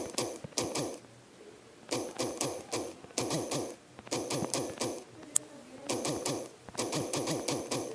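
Keyboard click sounds of a phone's touchscreen keyboard as a message is typed: rapid clicks in several quick bursts with short pauses between them, and one sharper tick about five and a half seconds in.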